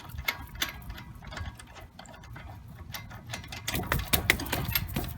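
Irregular metal clicks and taps of a tool working on the wheel's lug nuts, with a denser, louder run of clicks near the end.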